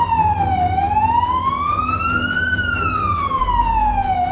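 Air-raid warning siren wailing, its pitch sliding slowly down, then up, then down again in a long even cycle.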